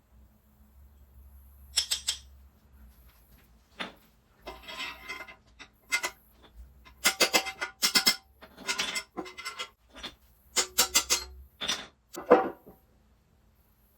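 Metal tools and parts clinking, clicking and scraping in hand work, about a dozen short sharp sounds spread irregularly, several with a brief metallic ring.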